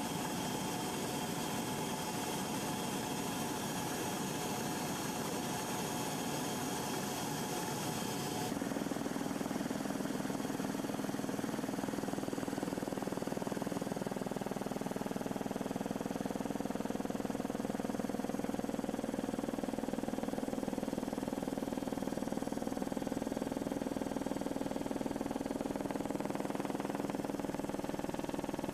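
Steady engine drone heard from inside an aircraft's cabin, with a sudden change in tone about eight seconds in, when the hiss drops and a lower hum comes up.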